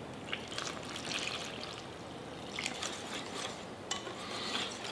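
Milk, egg yolk and oil poured from a bowl into a glass bowl of flour, then mixed into waffle batter: quiet trickling and stirring, with a few faint clicks.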